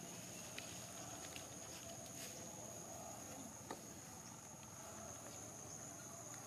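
Faint outdoor ambience: a steady high-pitched insect drone, with a few soft ticks and taps scattered through it.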